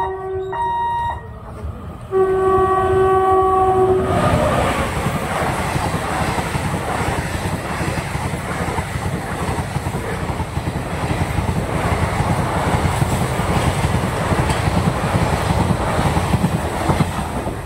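A train's horn sounds in short blasts, then in one steady multi-tone blast about two seconds in. The train then passes close by, its wheels and coaches clattering over the rails for some thirteen seconds before the noise starts to fade near the end.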